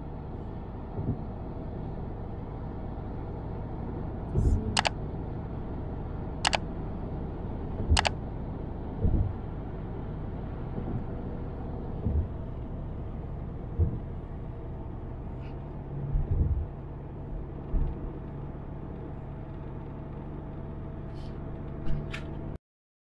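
Steady road and engine noise heard inside a moving car's cabin, with scattered low thumps and a few sharp clicks. The sound cuts off suddenly near the end.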